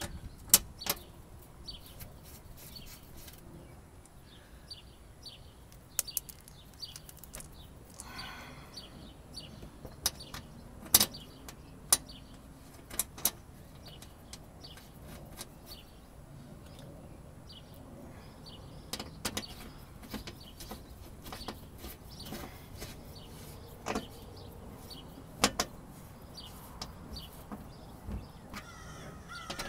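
Sharp plastic clicks and taps at irregular intervals, about ten over the stretch, as the twist-lock fasteners are pushed into a car's underbody splash shield and turned with a screwdriver.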